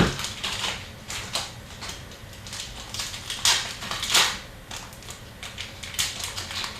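Hockey trading cards being handled and flicked through: a run of dry card-on-card slides and flicks, with two louder swishes about three and a half and four seconds in.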